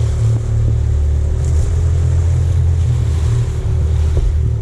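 Outboard motor of a small fishing boat running steadily under way, with a low hum and water rushing past the hull.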